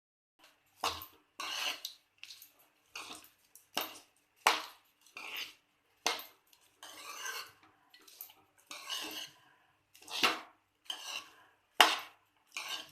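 A spoon scraping and knocking against a cooking pan in uneven strokes while cooked rice is mixed into the lemon-rice seasoning, with a few sharper knocks near the end.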